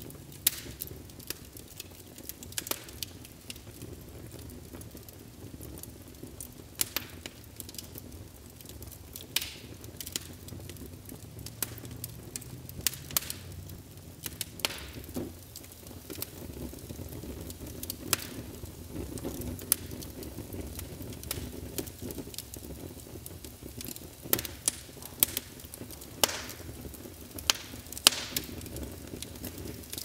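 Fire crackling, with irregular sharp pops and snaps over a steady low rumble; the loudest pops come about half a second in and several times in the last ten seconds.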